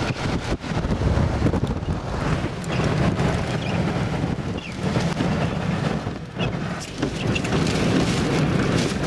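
Strong, gusting storm wind beside a tornado, buffeting the microphone with a heavy low rumble, mixed with rain.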